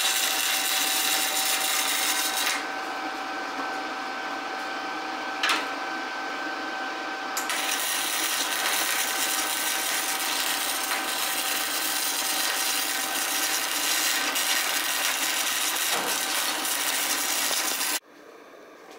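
Wire-feed MIG welder arc crackling as a steel bracket is welded on: a couple of seconds of welding, a quieter stretch with one short spurt, then a long unbroken run that cuts off abruptly near the end. A faint steady hum lies underneath.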